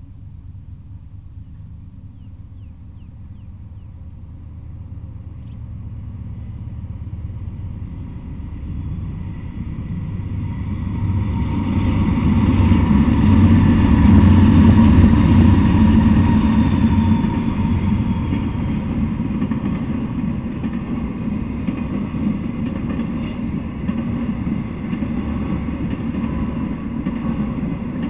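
Diesel freight locomotive approaching and passing, its engine rumble growing louder and loudest about halfway through, then the steady rumble of intermodal flatcars loaded with truck trailers rolling by on the rails.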